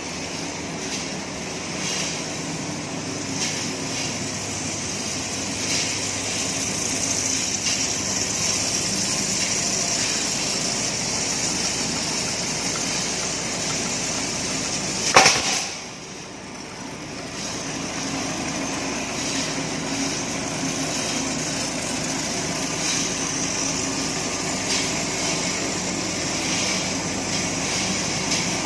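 Steel wire straightening and cutting machine running with a steady mechanical whirr and light ticks. About halfway through there is one loud sharp clack, after which the running sound drops briefly and then builds back up.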